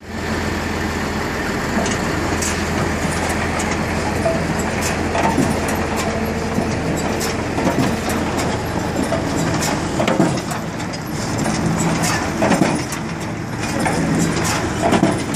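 John Deere small square baler running, with a clatter of clicks and knocks over a steady low machine hum; the hum drops away about two-thirds of the way through.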